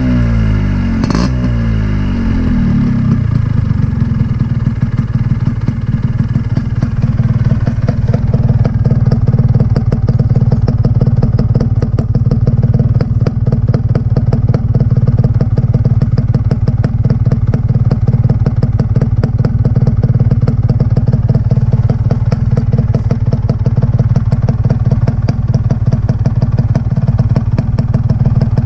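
Yamaha RX135 two-stroke single-cylinder engine running through a catalytic silencer whose internals have been altered for more sound. Its revs fall back during the first few seconds, then it idles steadily with a rapid, even exhaust beat.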